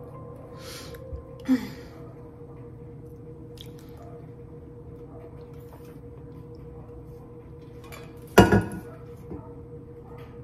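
Two short knocks of small objects being handled, one about a second and a half in and a louder double knock about eight seconds in, over a steady hum.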